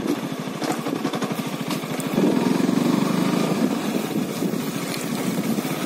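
KTM RC 125's single-cylinder four-stroke engine running as the motorcycle rides along a dirt track; the engine gets louder about two seconds in and stays up for a second or so.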